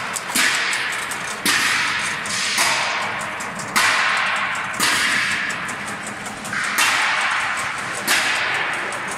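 Industrial vegetable cutting machine slicing potatoes into crinkle-cut fries: a sharp swishing hiss that starts about once a second and fades before the next.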